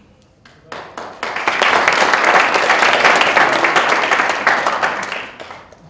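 Applause from a room of people clapping: a few separate claps just under a second in, quickly swelling into full applause that dies away near the end.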